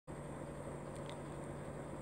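Low steady background hiss with a faint hum, the room tone of a device microphone, with two faint ticks about a second in.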